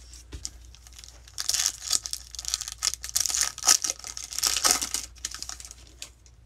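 Foil wrapper of a 2020 Bowman baseball card pack being torn open and crinkled: an irregular crackling rustle from about a second and a half in until about five seconds, after a soft knock near the start.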